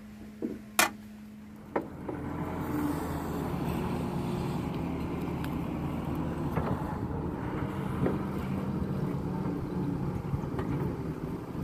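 A few light clinks of dishes and cutlery in the first two seconds, then a KATO crawler excavator's diesel engine running steadily as the machine digs and swings bucketfuls of wet mud.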